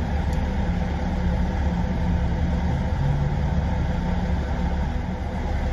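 Steady low rumble of a car engine idling, heard from inside the car's cabin.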